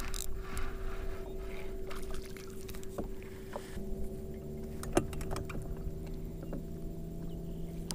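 Electric bow-mounted trolling motor humming steadily, its pitch shifting about four seconds in, with a few light clicks from a crappie being handled off the hook.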